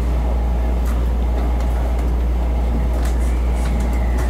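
Steady low hum inside the passenger cabin of an electric commuter train standing at a platform, with a few faint clicks.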